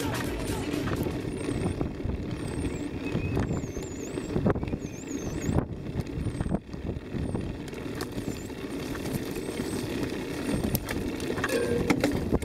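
Mountain bike descending a bumpy dirt trail: a steady rattle and rumble from the tyres and frame over the ground, with wind on the camera microphone and a few faint high squeaks in the first half.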